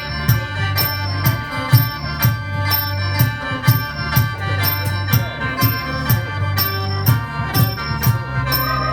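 Khaen, the Lao-Isan bamboo free-reed mouth organ, playing a sustained chord with drone in a lively folk tune, over percussion beating steadily about twice a second.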